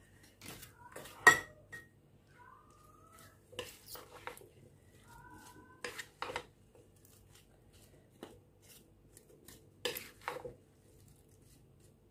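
Silicone spatula stirring creamy fruit salad in a glass bowl: scattered knocks and clicks against the glass, the loudest about a second in, again near the middle and near the end.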